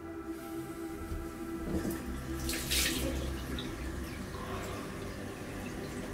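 Bathroom mixer tap running into a sink while hands splash water onto a face, with the loudest splashes about two and a half to three seconds in. Soft, steady music sits underneath.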